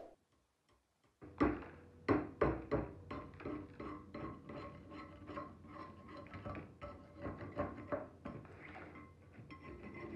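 A thin metal tool scraping and chipping flaky rust scale off a steel cleaver blade, in quick irregular scratchy strokes with faint metallic ringing. It starts about a second in.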